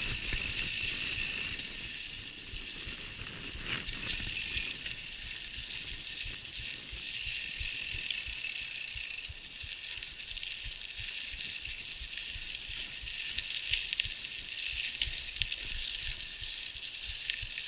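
Mountain bike riding over a bumpy dirt track: tyres rumbling and the bike rattling over the ground, with the rear freehub clicking in spells while the rider coasts. A few sharper knocks from bumps come around the middle and near the end.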